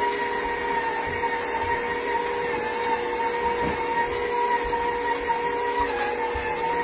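KitchenAid stand mixer running steadily, its motor giving a constant whine as it kneads pasta dough in the bowl, with the pitch dipping slightly now and then under the dough's load.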